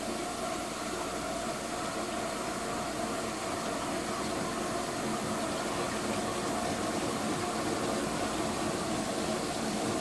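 Vintage KitchenAid Superba KDS-15 dishwasher running its first pre-rinse: a steady motor hum under rushing, spraying water, growing slightly louder.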